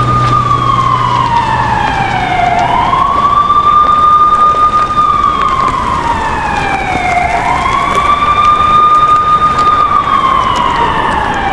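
Police car siren in a slow wail: it rises, holds, then falls again, about once every four and a half seconds, over a steady hiss.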